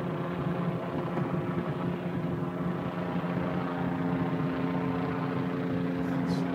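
Steady hum of an engine running, with an even drone that shifts slightly in pitch about halfway through.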